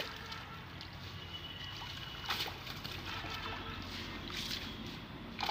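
Pond water sloshing and trickling as a seine net is hauled through it by men wading in the shallows, with a couple of faint splashes.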